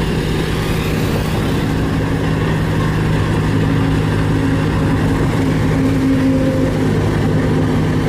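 Diesel engines of single-drum road rollers running steadily as the rollers compact a gravel surface.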